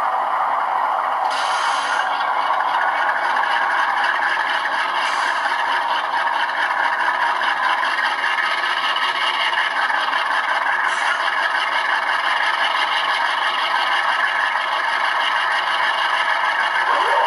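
Sound decoder in an HO-scale GE C40-8M locomotive model playing a Dash 8 diesel prime mover through the model's small speaker, running steadily and stepping up as the throttle is raised.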